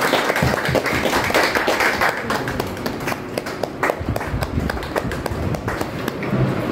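Scattered claps and sharp taps, irregular and uneven, over the low noise of a gathered crowd moving about.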